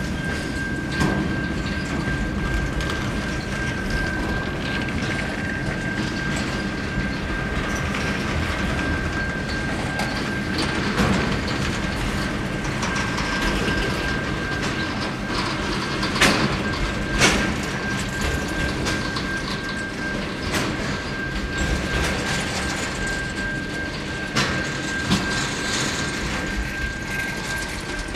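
Freight train wagons rolling past at speed, a steady rumble and clatter of steel wheels over the rails, with a thin steady high whine running throughout. Two sharp metallic bangs come about a second apart, a little past the middle.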